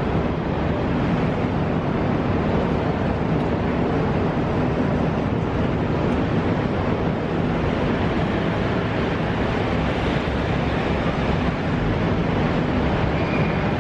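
Steady city street noise: a continuous rumble of traffic with wind buffeting the microphone, and a low engine-like hum underneath.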